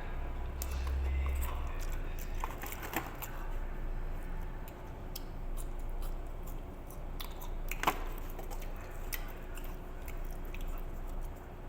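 A person chewing and biting into spicy chicken close to the microphone, with scattered small clicks and one sharper click about eight seconds in. A brief low rumble is heard at the start.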